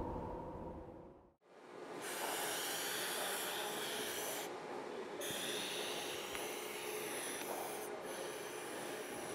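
Self-chilling can venting: after a moment's silence, a steady hiss of CO2 escaping through the can's valve begins about two seconds in, once its actuator button is pressed. The hiss is the gas being driven off the activated carbon inside the can, which chills the drink.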